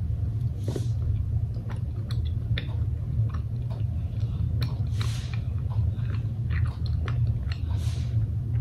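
Someone chewing a soft taro mochi, with small wet mouth clicks and a few sniffs as the mochi is held up to the nose, over a steady low hum.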